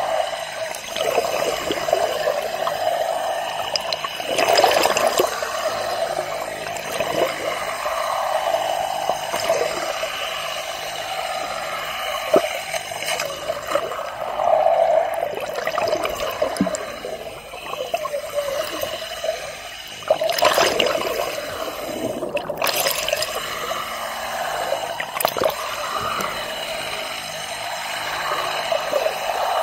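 Water sloshing and gurgling heard underwater beside a boat hull, over a constant steady hum, broken by a few sharp knocks, the loudest about twenty and twenty-three seconds in.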